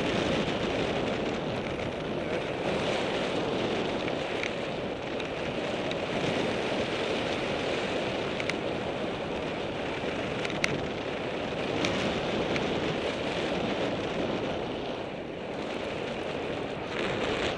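Steady rush of wind on the microphone of a camera riding on a bicycle coasting downhill, mixed with tyre noise on the rough road surface. A few sharp ticks stand out, the clearest about 10.7 seconds in.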